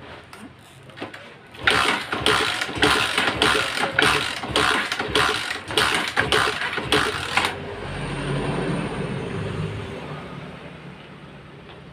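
Honda motorcycle engine cranked over by its starter with a compression gauge fitted in the spark-plug hole. It gives regular pulses, about two a second, for some six seconds, one on each compression stroke, as a compression test is taken. When the cranking stops, a softer low rumble fades away.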